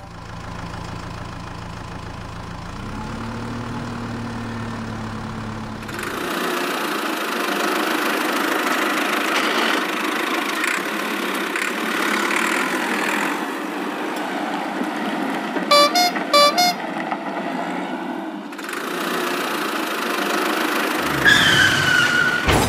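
Cartoon vehicle sound effects: a low engine hum, then a louder, noisier engine sound. Several short horn toots come about halfway through, and a brief falling whistle comes near the end.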